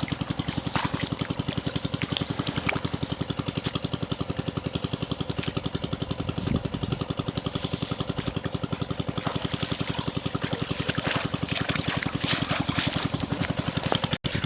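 A small engine running steadily with a fast, even thumping, over trickling and splashing water; the sound drops out for an instant near the end.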